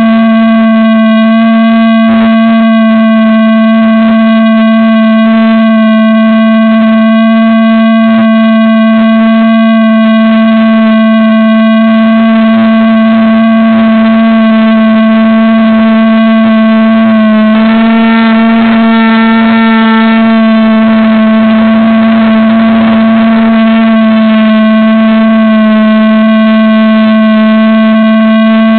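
Steady, loud buzz from an RC plane, picked up by its onboard camera: one fixed pitch with many overtones. About two-thirds of the way through, the pitch wavers briefly and a hiss rises.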